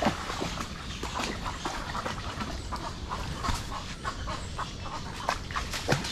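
Light splashing with many scattered small clicks and snaps, from someone wading through shallow water among mangrove roots and branches.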